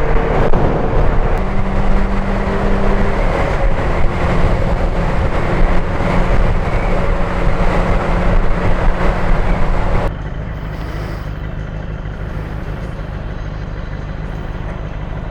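Wind rushing over a helmet-mounted mic with the visor up, over the Benelli TNT600's inline-four engine humming at steady revs. About ten seconds in, the wind noise drops off abruptly and a lower, quieter engine note continues.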